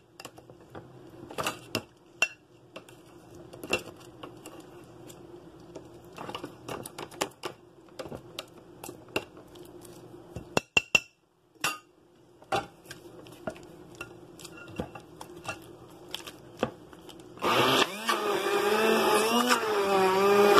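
A utensil tapping and scraping against a glass blender jar of thick meat paste, in scattered clicks. About seventeen seconds in, an electric blender motor starts, much louder, its pitch wavering up and down.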